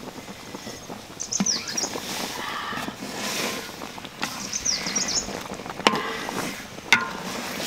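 A metal spatula knocking and scraping against a large pan of fish boiling in broth, with two sharp clanks near the end. Small birds chirp in short descending calls twice.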